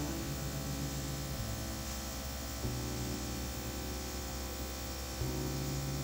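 Steady electric hum of a small airbrush compressor running while the airbrush is in use, with a constant faint hiss.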